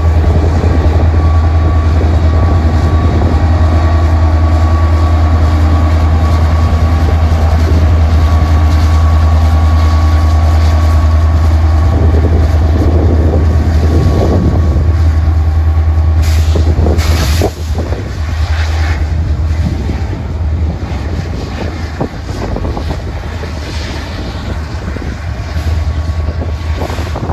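Kansas City Southern diesel freight locomotive and its tank cars passing: a loud, steady low engine rumble with wheels running on the rails. About two-thirds of the way in, the sound drops off suddenly, leaving quieter rolling and a few clanks.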